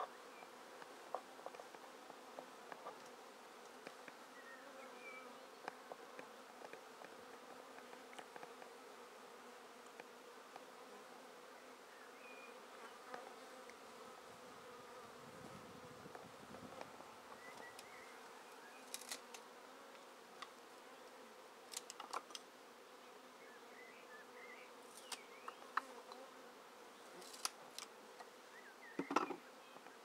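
Honeybees buzzing around an open hive: a faint, steady hum. Occasional light clicks and knocks, more of them near the end.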